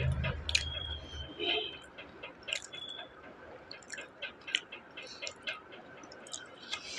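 A person chewing food with the mouth close to the microphone: wet mouth clicks and lip smacks at an irregular pace. A low hum stops about a second in.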